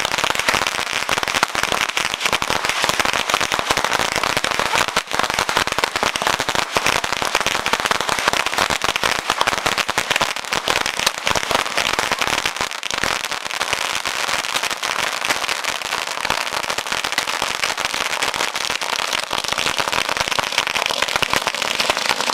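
A cluster of bottle rockets going off together on the ground: a dense, continuous crackle of rapid pops that hardly lets up.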